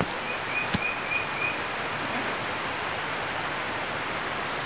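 Steady rushing outdoor background noise in woodland, with a bird giving about five quick, high chirps in the first second and a half. A single sharp click sounds just under a second in.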